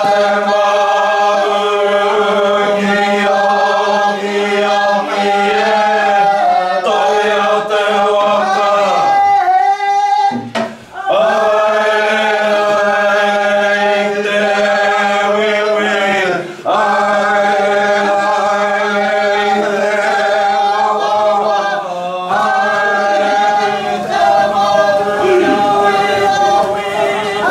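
Voices chanting a Māori blessing chant in unison. It runs in phrases of several seconds with long held notes, most phrases ending in a falling glide, with a short breath break about ten seconds in.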